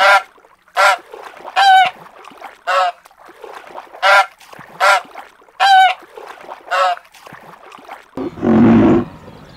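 Waterfowl honking: eight short, separate honks, about one a second. Near the end a longer, lower, rougher sound comes in.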